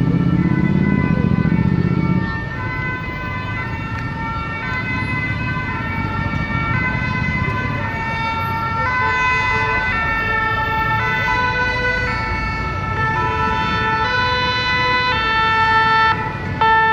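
French two-tone emergency vehicle siren, its pitch stepping back and forth between two notes and growing louder, over a low rumble of traffic.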